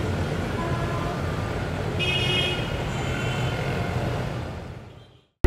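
Busy road traffic noise with a vehicle horn honking briefly about two seconds in. The sound fades out near the end.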